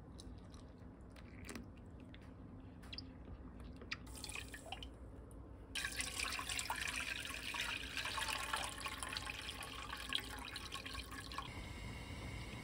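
Water trickling and dripping faintly as it is poured into a glass bowl of glutinous rice flour. About six seconds in, a louder, steady splashing stream of liquid pours through a metal mesh strainer into a pot for about five seconds, then stops.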